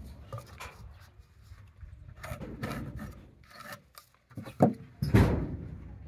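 Hands working a combination square and steel rule against rough-sawn timber while marking it with a pencil: wood and metal scraping and rubbing. There is a short sharp knock about four and a half seconds in and the loudest scrape just after it.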